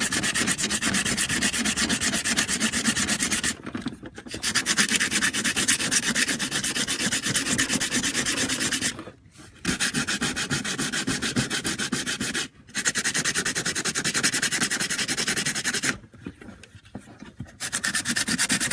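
Sandpaper scrubbed rapidly back and forth over the stock hood-vent backing plate, in several spells broken by four short pauses. It is roughing up the surface so the adhesive bonds better.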